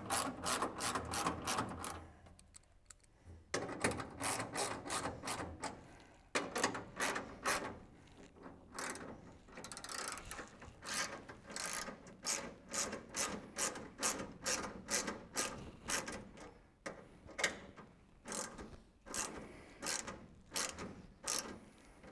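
Hand socket ratchet clicking in quick strings as it runs seat-pan bolts down into their lock nuts, with a short break about two seconds in.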